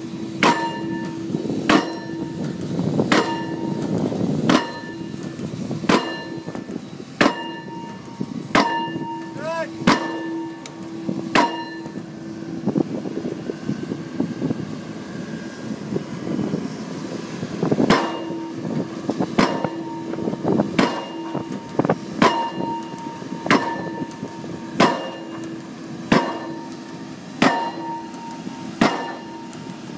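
Pile-driving hammer striking a pile, one clanging, ringing blow about every 1.4 seconds over a steady machine hum. The blows pause for about six seconds midway, then resume at the same pace.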